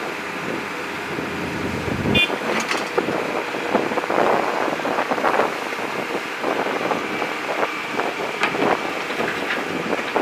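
Backhoe loader's diesel engine running while its bucket digs into and scrapes broken concrete and rubble, with repeated knocks and clatter throughout. A brief high squeak about two seconds in.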